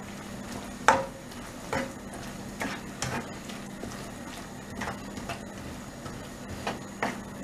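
Spatula stirring capsicum pieces through thick sauce in a non-stick wok, with irregular knocks and scrapes of the spatula against the pan, the loudest about a second in.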